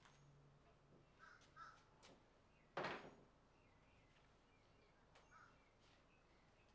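Near silence, broken by a few short harsh crow caws: two faint ones close together, one louder caw about three seconds in, and another faint one near the end.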